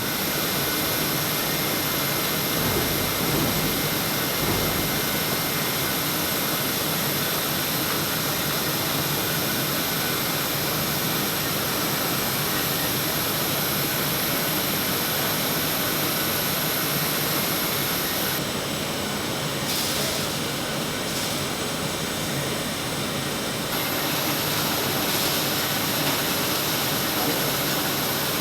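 Steady machine noise from button polishing machinery: a constant rushing roar with a strong high hiss, easing slightly for a few seconds about two-thirds of the way through.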